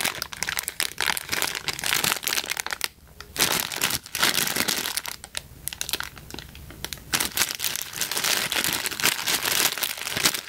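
Clear plastic bag crinkling as hands handle it around a small cosmetic jar. The crinkling comes in irregular runs, with a brief lull about three seconds in and a quieter stretch from about five to seven seconds.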